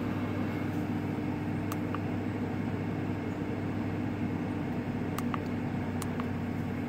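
Ford F-150's V8 engine idling steadily, heard from inside the cab as an even hum, with a few faint ticks.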